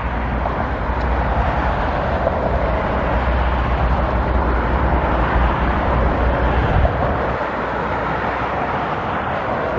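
Steady rumble of motor traffic with a deep low drone that eases off about seven seconds in.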